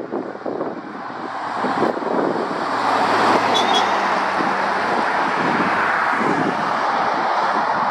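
Mercedes-Benz flatbed recovery lorry driving past at road speed: engine and tyre noise grow to a peak about three to four seconds in, with a low engine hum. A car following close behind keeps the road noise up as it passes too.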